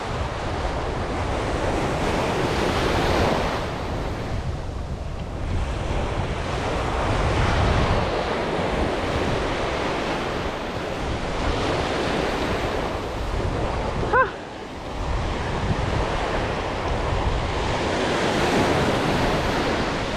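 Surf washing up a sandy beach, the noise swelling and easing every few seconds as small waves break and run up, with wind buffeting the microphone. A short squeak about fourteen seconds in.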